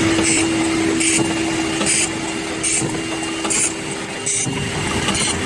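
Automatic magnet and iron-sheet pasting machine running with a steady hum, broken by a short hiss of air about every 0.8 s as its pneumatic actuators cycle.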